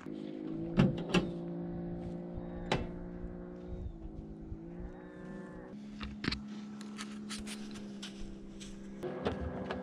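Cattle mooing: long drawn-out lowing calls that overlap and shift in pitch, one rising partway through. A few sharp knocks sound over them.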